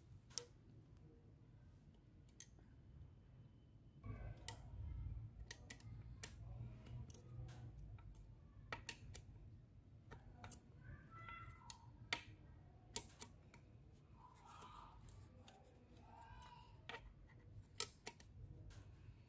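Faint, scattered sharp metallic clicks and taps of a screwdriver working the screws that fix the saddle plate inside a Yuken A70 piston pump's housing, at irregular intervals.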